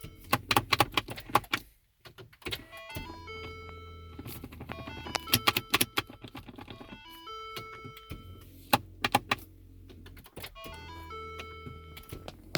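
Lincoln MKT failing to start: a rising electronic chime, then a steady low hum and clusters of rapid clicks. The cycle repeats about three times.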